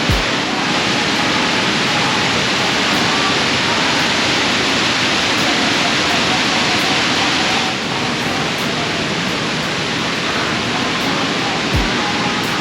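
Steady rush of a waterfall cascading down a 30-metre drop, loud and even throughout, easing slightly about eight seconds in.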